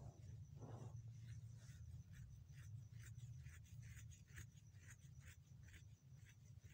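Near silence: faint room tone of an animal exhibit, with a steady low hum, a thin high whine and a run of soft ticks or scratches, about two or three a second.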